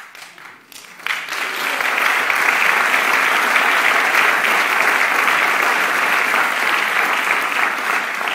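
Audience applauding: a few scattered claps at first, swelling to full applause about a second in and holding steady, then easing off near the end.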